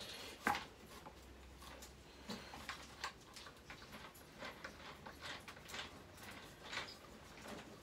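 Scattered light clicks and taps from handling a line trimmer's plastic edger attachment and shaft, with a sharper knock about half a second in.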